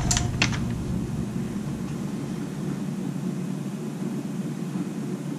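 Steady low drone of a spray booth's extraction fan. Two brief airbrush hisses in the first half second.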